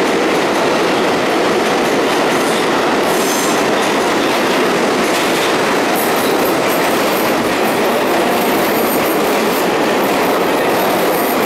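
Pullman-Standard R46 subway train running into an underground station, a loud, steady rumble of steel wheels on rail with clickety-clack. Higher squealing joins in about halfway through, as the train comes alongside the platform.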